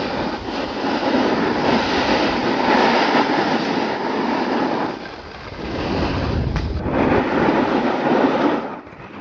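Steady scraping hiss of skis or snowboard edges sliding over packed snow on a descent, mixed with wind on the microphone. It eases briefly about five seconds in and again near the end.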